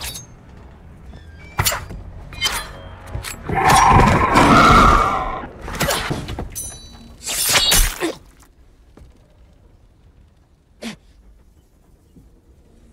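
A rapid run of crashes and sharp impacts in a film action scene, with some music under it. The loudest burst comes about four to five seconds in. After about eight seconds it falls away to quiet, broken by one short sharp hit near the end.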